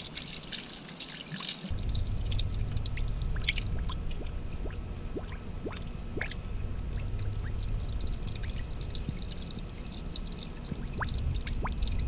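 Water pouring and trickling out of an open PVC condensate drain line fitting and splashing onto gravel, with many small dripping plinks: the backed-up water draining out with loosened muck once the clog has been pumped free. A low rumble joins in about two seconds in.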